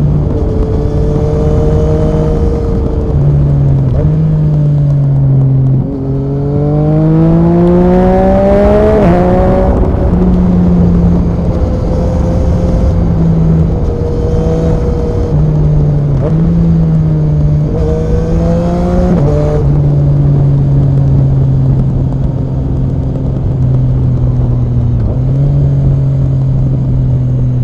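Yamaha MT-09 SP's three-cylinder engine through an Akrapovic Racing exhaust, on the move. It pulls hard with a rising pitch about six to nine seconds in, climbs again near the middle, then settles to a steady lower note, over a low rush of wind noise.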